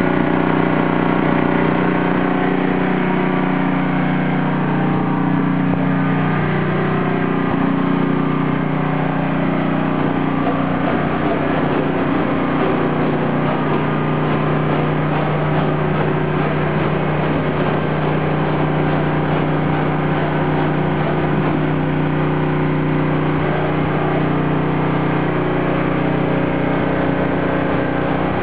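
Portable generator's small engine running steadily, a constant drone.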